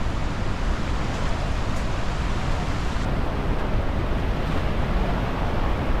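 Steady roar of rushing water from the Iguazu River and falls, with wind on the microphone.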